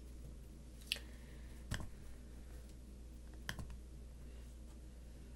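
Computer mouse clicking: three sharp single clicks, about a second in, just before two seconds and at about three and a half seconds, over a faint steady low hum.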